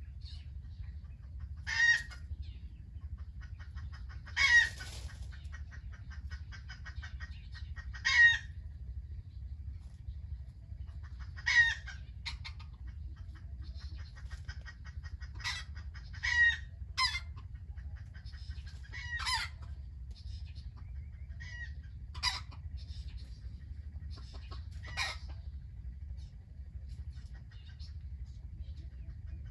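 A chicken calling again and again: short, sharp calls every few seconds, with fainter clucking in between, over a steady low rumble.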